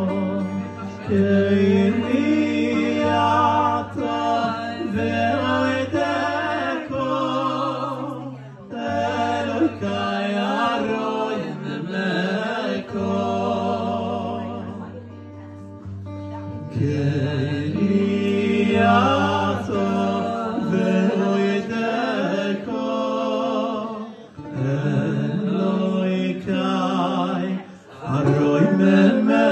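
A man sings a melody with a wavering vibrato in phrases separated by short breaths, accompanied by an acoustic guitar.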